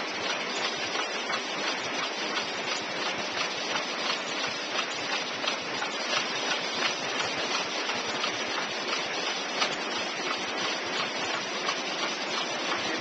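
Cougar flow-wrap packaging machine and its outfeed conveyor belt running: a steady hiss with rapid, irregular light clicking and rattling.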